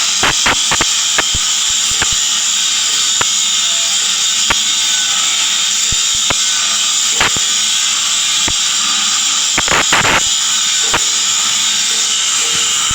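Welding arc hissing steadily with irregular crackles and pops, a close cluster of them about ten seconds in.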